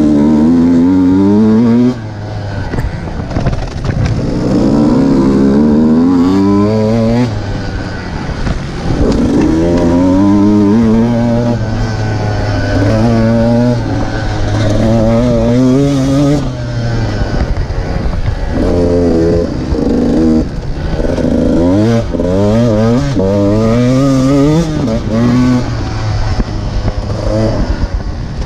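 Off-road dirt bike engine heard from on board while riding hard across a field, its pitch climbing over and over and dropping back with each gear change and throttle lift.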